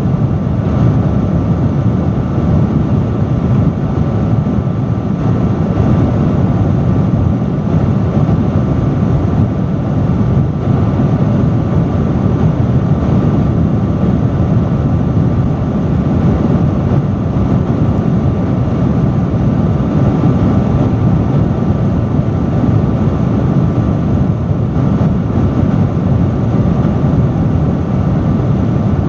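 Industrial fan running steadily: a loud, even rush of air, strongest in the low end, with a faint steady hum from the motor.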